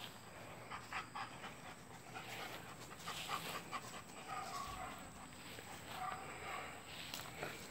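German Shepherd panting: a run of quick, repeated breaths through its open mouth.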